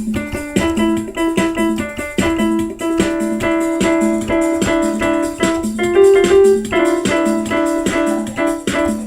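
Electronic keyboard's built-in disco accompaniment style playing: a steady drum-machine beat under repeated keyboard chords.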